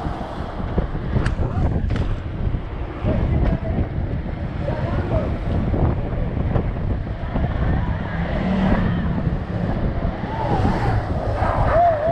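Heavy wind buffeting on an action camera's microphone as a BMX bike rolls fast downhill on asphalt, a loud, dense rumble throughout, with a couple of sharp clicks in the first two seconds.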